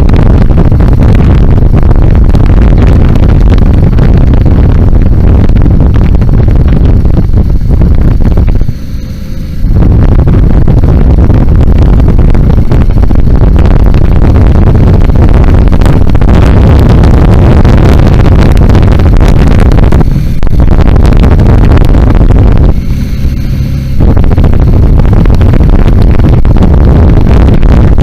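BMW G 650 GS single-cylinder motorcycle engine running as the bike is ridden, heard through the on-board camera's microphone with loud rumble and buffeting. The sound dips briefly twice, about nine seconds in and again near 23 seconds, then comes back at full level.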